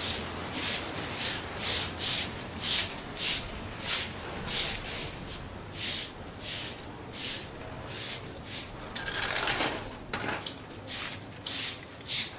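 Broom sweeping sandy dirt ground in quick, regular strokes, nearly two a second, each a short scratchy swish.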